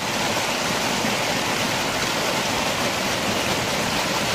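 Muddy rainwater from a flash flood rushing and splashing down over rocks in a small waterfall, a steady, loud rush of water.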